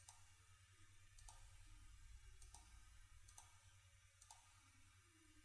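Faint clicks of a computer mouse, five of them about a second apart, over a low steady hum.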